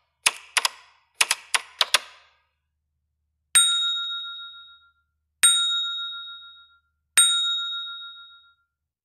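Animated outro sound effects: a quick run of sharp clicks in the first two seconds, then three bright dings about two seconds apart, each ringing out for about a second.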